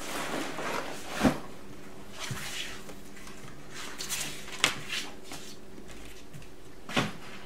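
Rustling and handling of a backpack, a folder and sheets of paper, with a few sharp knocks of the folder against a wooden tabletop.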